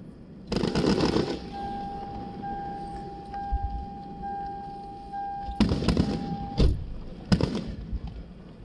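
Aerial fireworks going off: a loud crackling burst about half a second in, then several sharp bangs in quick succession near the end. A steady high tone holds for several seconds in between.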